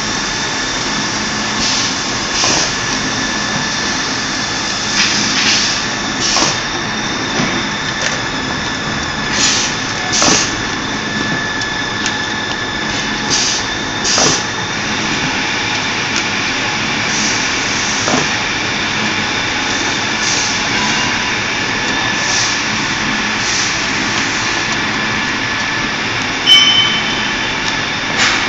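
Folder gluer for corrugated cardboard running: a steady machine drone with a held high whine, and irregular sharp clatters as the board blanks move through it, with one louder knock near the end.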